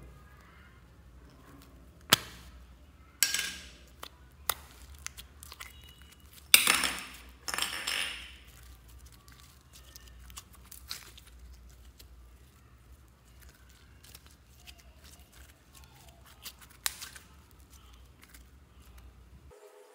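A hard plastic slime container handled and opened over a glass bowl: several sharp clicks and knocks in the first half, with longer scraping rustles about a third of the way in. After that, quieter handling of stretched slime with a few small clicks.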